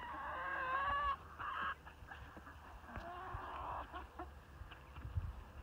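A flock of hens clucking, opening with one drawn-out, wavering call in the first second, followed by shorter, softer calls.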